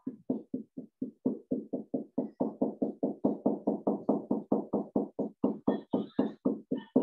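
Felt-tip marker scratching on a whiteboard in quick, short, rhythmic hatching strokes, about six a second, as shading is laid in.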